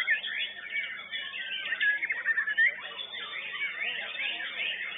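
White-rumped shama (murai batu) song: a dense, unbroken run of fast whistled phrases, sliding notes and trills.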